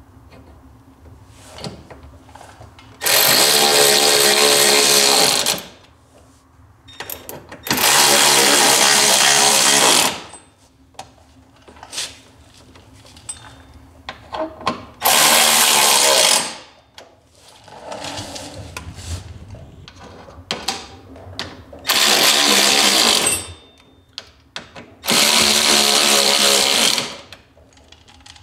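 Cordless electric ratchet running in five short bursts of about two seconds each, spinning and tightening the bolts that hold a snowmobile's rear bumper to the tunnel. Small clicks and knocks between the bursts as the socket is set on each bolt.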